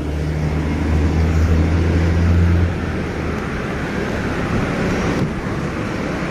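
Road traffic noise with a vehicle engine's low steady hum, which stops about three seconds in.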